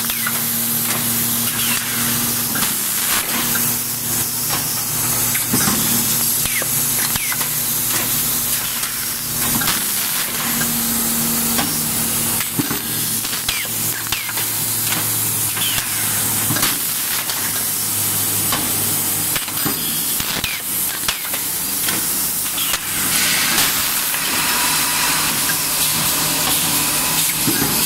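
Automatic pad printing machine for PVC toy balls running: a steady low hum under a continuous hiss, with frequent short clicks and knocks from its moving parts.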